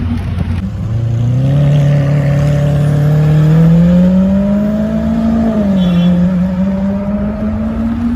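Lamborghini sports car's engine accelerating, its note rising steadily for several seconds, dipping briefly about six seconds in, then holding and climbing again.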